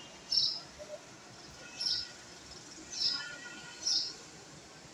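A small bird chirping: four short, high chirps about a second apart, over a steady faint background hiss.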